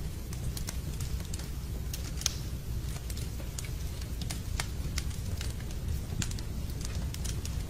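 Wood logs burning in a fireplace: irregular sharp pops and crackles over a steady low rumble of the fire, with one louder pop about two seconds in.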